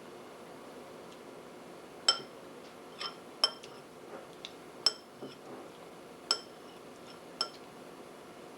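A spoon clinking against a bowl while a toddler eats: about half a dozen sharp, ringing clinks at irregular intervals, starting about two seconds in.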